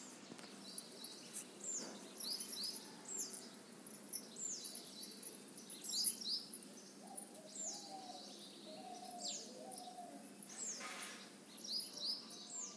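Small birds chirping: high, short chirps, each sweeping downward, repeating about once a second over a faint steady hiss.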